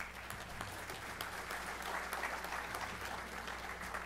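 Audience applauding, many hands clapping, over a steady low hum.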